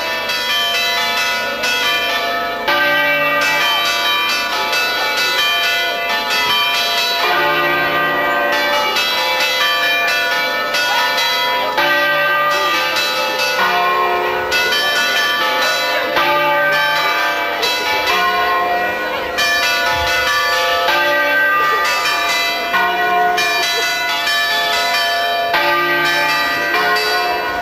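Church bells ringing, several bells struck one after another about every second and a half, their tones overlapping.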